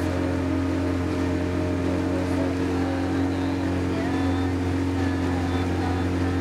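Small boat's outboard motor running steadily under way, a constant low hum with several even overtones that holds the same pitch throughout.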